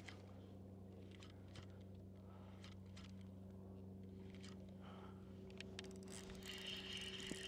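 A faint, steady low hum with a few light clicks. A thin high tone comes in near the end.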